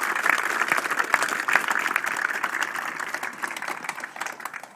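A crowd of people applauding, the clapping thinning out and fading away toward the end.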